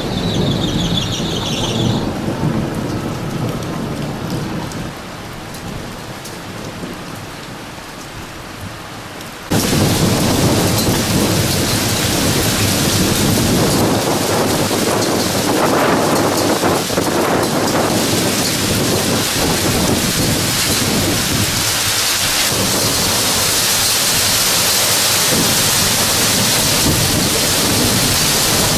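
Thunderstorm: rolling thunder fades away over falling rain, then about nine seconds in the sound jumps abruptly to a loud, steady hiss of heavy downpour.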